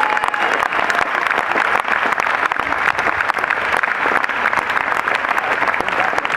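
Large concert audience applauding steadily, a dense even patter of many hands clapping.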